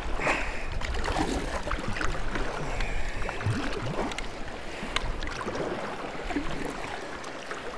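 Water splashing and trickling around a kayak as it is paddled, with small scattered clicks and drips.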